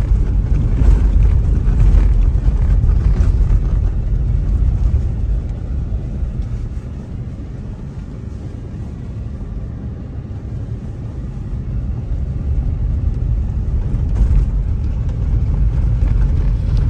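Road noise heard inside a moving car's cabin: a low rumble of tyres and engine on a rough, bumpy road surface. It eases off in the middle and builds up again toward the end.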